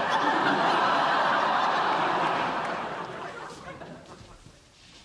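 Studio audience laughing, dying away about three to four seconds in.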